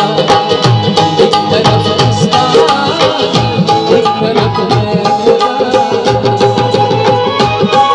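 Live folk music: tabla playing a dense rhythm over the steady held notes of harmonium.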